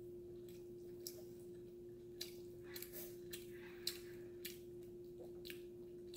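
Mouth sounds of someone chewing a mouthful of hamburger: a handful of short, wet smacks and clicks, the loudest about four seconds in, over a steady low hum.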